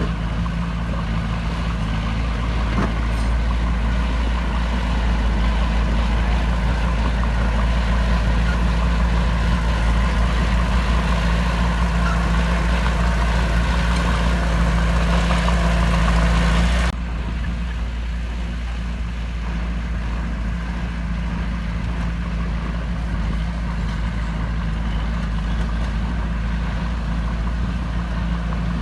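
Heavy diesel engine of earthmoving machinery running steadily with a deep, even drone. A little past halfway it drops suddenly to a quieter level and runs on.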